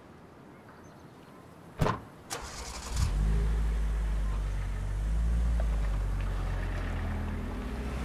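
A car door slams shut about two seconds in, with a lighter knock just after. Then the taxi's engine starts and runs steadily.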